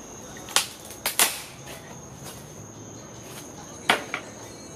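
Wooden pallet boards being pulled apart by hand: sharp cracks of splitting and snapping wood, three close together in the first second and a half, then two more near the end. Crickets chirr steadily underneath.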